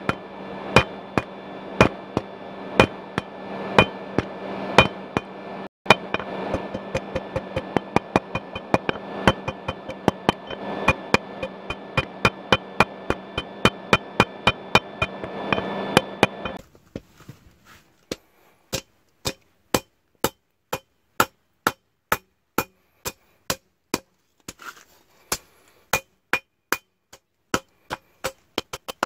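Hand hammer forging red-hot bearing steel on an anvil, sharp metal-on-metal blows at a steady pace of about two a second. A steady hum runs underneath and stops suddenly a little over halfway through, leaving only the blows.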